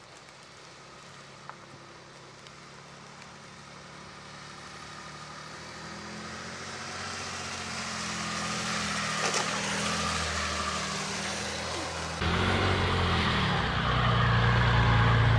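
Opel Vectra C's 3.0 V6 CDTI turbo-diesel engine pulling the car up a dirt-and-snow track, with tyre noise on the ground. It grows steadily louder as the car approaches, and jumps louder about twelve seconds in as the car comes close.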